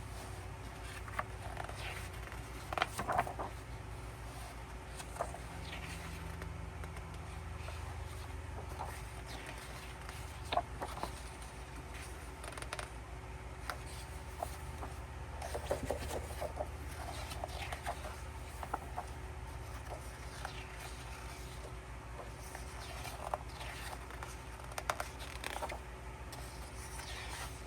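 Pages of an album photo book being turned and handled: scattered soft paper rustles and light taps over a faint low hum.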